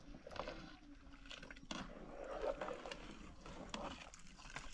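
Soft, irregular sloshing and splashing as a hand stirs rice in a large pot of water, with a few light knocks.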